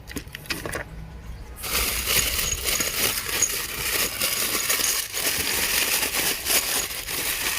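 Paper packing material rustling and crinkling, full of small clicks and clinks, as a delivery box is dug through. It starts about a second and a half in.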